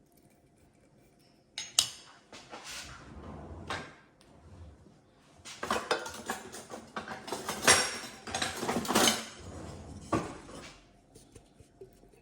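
Kitchen utensils and a jar clinking and scraping against a slow cooker's pot as sauce is added to chicken: a sharp clink about two seconds in, then irregular clinks and scrapes.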